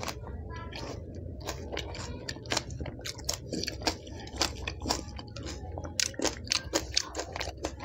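Close-miked chewing of a pani puri (golgappa) stuffed with green chili: the crisp fried shell and chili crunching in many sharp, irregular cracks, coming thickest near the end.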